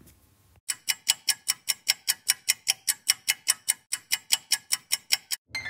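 Countdown-clock ticking sound effect, sharp even ticks about six a second, timing the pause left for a quiz answer. It stops near the end as a falling tone begins.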